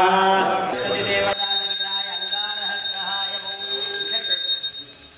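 Priests chanting mantras, then about a second in a ritual bell starts ringing steadily over quieter voices, stopping shortly before the end.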